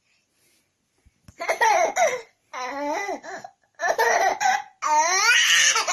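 A young child laughing loudly in several high-pitched bursts, starting about a second in.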